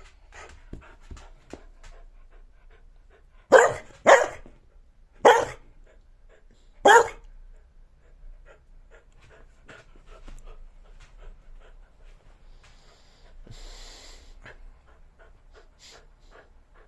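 A dog barking: four loud, short barks in about three and a half seconds, with many faint short clicks and sounds between them.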